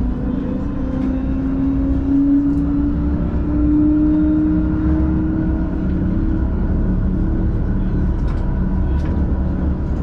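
Siemens Combino tram in motion: the traction motor whine rises in pitch over the first few seconds as the tram picks up speed, then holds steady, over a low rumble of wheels on rail. A few sharp ticks come near the end.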